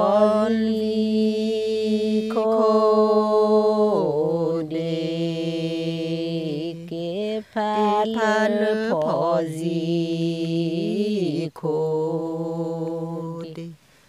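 An older Karen woman singing a traditional hta verse unaccompanied in a chanting style: long held notes joined by slides in pitch. She breaks off briefly about seven and a half and eleven and a half seconds in, and the song stops just before the end.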